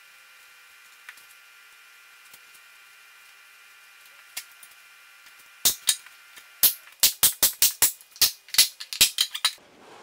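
A hand staple gun fires about a dozen times, loud sharp snaps coming roughly three a second, as upholstery fabric is fastened to a wooden armrest. A faint steady background hum comes first.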